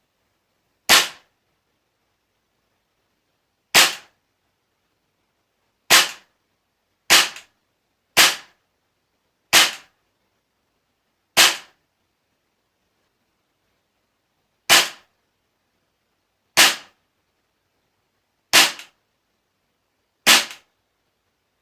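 Tokyo Marui H&K MP7A1 gas-blowback airsoft gun fired single shot at a time: eleven sharp cracks, each a gas shot with the clack of the blowback, spaced unevenly one to three seconds apart. A few shots carry a faint second tick just after.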